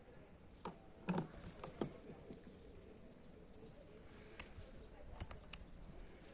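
A few light, sharp taps and clicks: a cluster about a second in and a few more near the end, over a faint steady background hiss.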